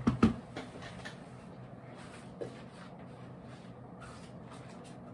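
Handling noise as a computer monitor is picked up: two sharp knocks right at the start, then faint clicks and rustles with a smaller knock about two and a half seconds in, over a low steady hum.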